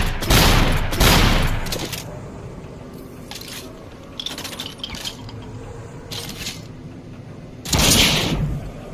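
Double-barrelled shotgun firing: two loud shots in quick succession in the first second, each with a decaying echo, then several seconds of light metallic clicks and rattles of the gun being handled, and another shot near the end.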